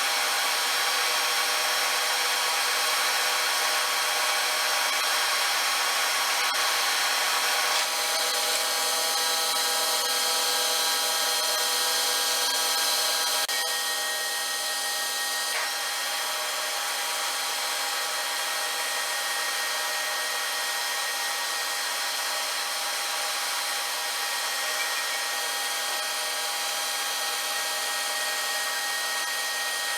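A metalworking machine running steadily while cutting steel, a continuous grinding, rubbing noise with several steady whining tones; it eases slightly about halfway through.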